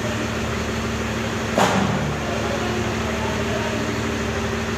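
Steady hum of a running engine, with one sharp knock about a second and a half in.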